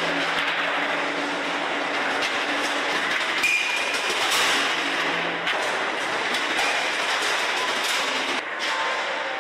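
Steady industrial din in a steel-ball factory: dense metallic clatter and rattling over machine noise, with a faint low hum that drops out about halfway through.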